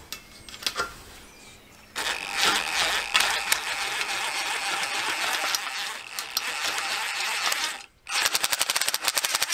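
Cordless impact driver driving a drill-attachment metal shear through galvanized steel Z flashing: a steady motor-and-cutting noise from about two seconds in, a brief stop just before the end, then a fast, rapid clatter of repeated clicks.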